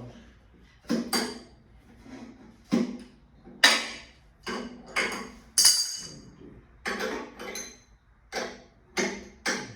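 Metal tools clinking and knocking against each other as they are handled and sorted: about a dozen irregular sharp clinks, each with a short metallic ring.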